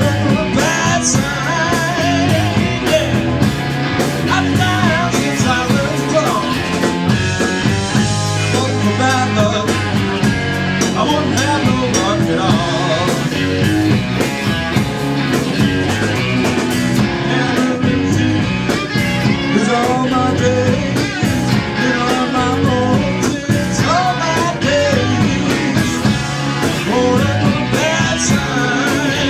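A live rock band playing a blues-rock song: drum kit, bass guitar and two amplified electric guitars, loud and continuous, with bending guitar lines over the rhythm.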